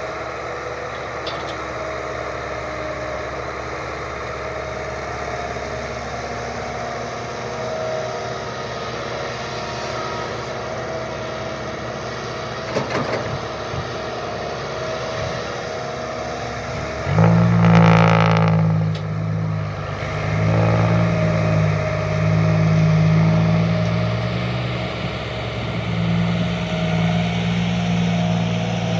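Kobelco SK120 Mark 3 excavator's diesel engine running steadily, with a brief metallic clank about halfway through. About two-thirds of the way in, the engine note suddenly gets much louder and deeper as it comes under load, then rises and dips with the work.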